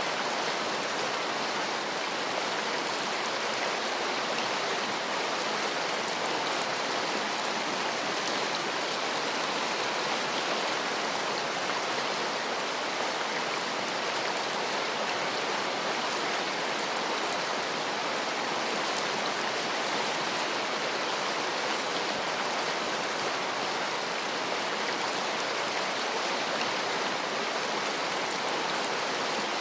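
Heavy rain falling, a steady, even hiss with no breaks or thunder.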